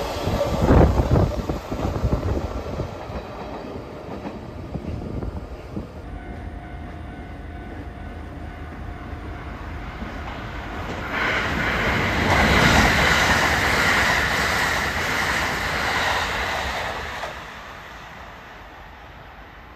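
A Kintetsu Moto 90 electric freight car rumbles past with clattering wheels, fading within a few seconds. Then a Kintetsu 80000 series Hinotori limited express comes through: a rush of wheel and rail noise with a high ringing from the rails builds for several seconds, then falls away near the end.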